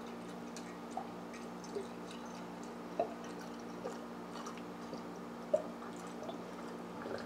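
Diesel fuel trickling from a hose into a glass beaker, with a few small drips and plops, over a steady low hum.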